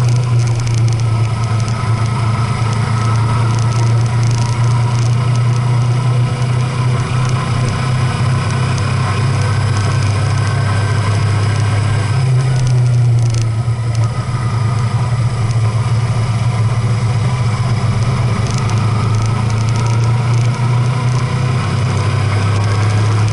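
A road vehicle's engine running steadily while driving, with a low drone throughout that wavers briefly about halfway through before settling back.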